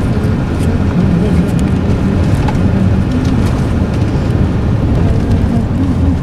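Steady road and engine noise heard inside a moving car's cabin, a constant low rumble with no break.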